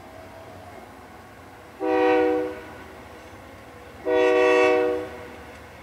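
Union Pacific freight locomotive's air horn sounding two short blasts for a grade crossing, about two seconds apart, the second a little longer. Each blast is a chord of several tones.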